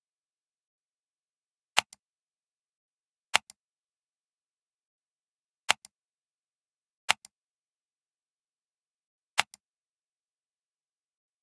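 Computer mouse clicking five times, one to two seconds apart, each a sharp press followed at once by a softer release, with silence between.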